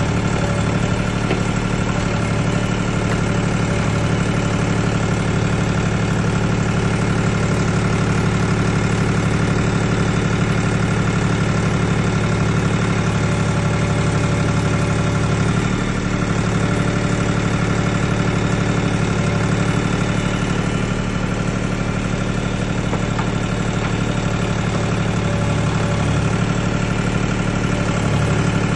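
Mini backhoe's engine running steadily at an even speed, with no revving.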